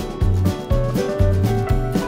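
Background music with a steady beat: low bass notes about twice a second under drum hits and held instrument notes.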